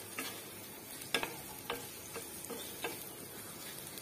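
A wooden spatula stirring and scraping potato pieces in a non-stick kadhai, with a few irregular knocks against the pan over a steady frying sizzle.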